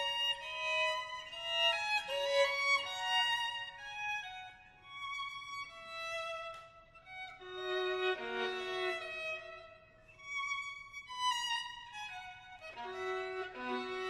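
Violin music: a slow melody of held notes, sometimes two notes sounding together.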